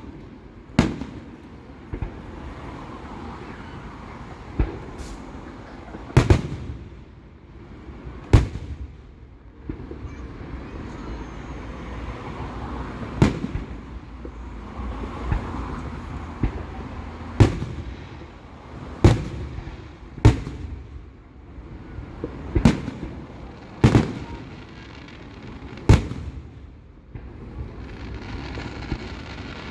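Fireworks going off: about a dozen sharp bangs at irregular intervals of one to a few seconds, over a steady background din.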